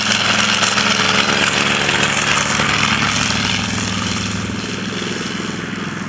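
TBM Avenger's Wright R-2600 Cyclone 14-cylinder supercharged radial engine running steadily with a low, even drone. The sound eases slightly about two thirds of the way in.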